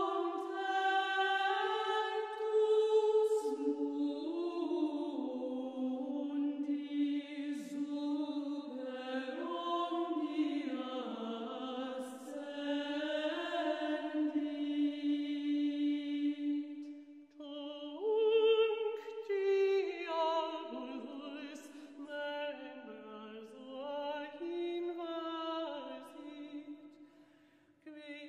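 Background vocal music: slow, sustained chant-like singing in long held notes. It breaks off briefly about seventeen seconds in and fades away near the end.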